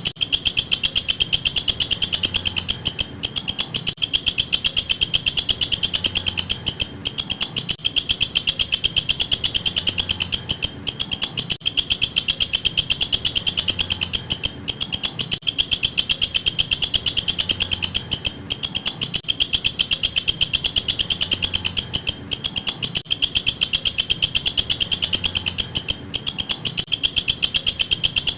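Walang kecek grasshopper singing: a continuous, very fast high-pitched ticking trill, broken by brief pauses every few seconds.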